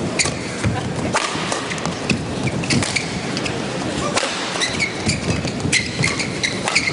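Badminton rally: rackets strike the shuttlecock with sharp cracks several times, and shoes give short squeaks on the court mat. A steady background murmur of the hall runs underneath.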